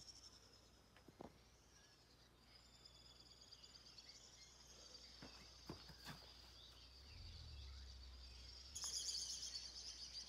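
Faint outdoor ambience: a steady, high-pitched chirring of insects, crickets most likely, with a few soft clicks. The chirring grows louder about nine seconds in.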